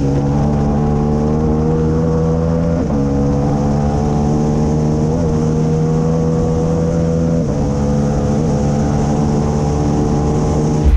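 KTM 890 parallel-twin engine of a racing sidecar outfit running hard at high revs, heard onboard over rushing wind. It holds an almost steady pitch, with a brief dip about three seconds in and two more in the second half.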